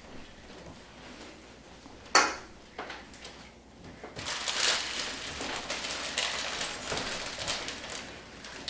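Meal-table handling noise: one sharp knock about two seconds in, then from about four seconds on a longer stretch of rustling and small clinks of cups, cans and food wrappers.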